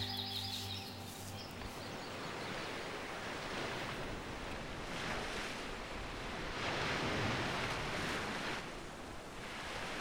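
Waves washing: a rushing noise that swells and ebbs every two or three seconds, as music fades out in the first second or so.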